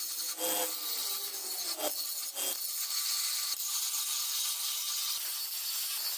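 A cordless angle grinder with a metal cutoff wheel runs steadily while grinding into an aluminum weld, giving a continuous high hiss of metal being cut. This is a cracked weld being ground out ahead of re-welding. The motor's whine drops in pitch during the first couple of seconds.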